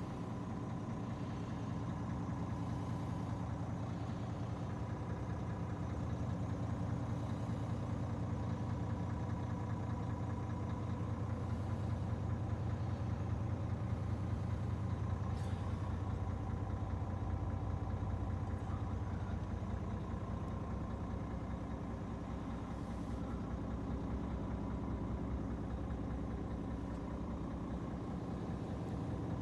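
Scania G450's 13-litre straight-six diesel idling steadily, heard from inside the cab.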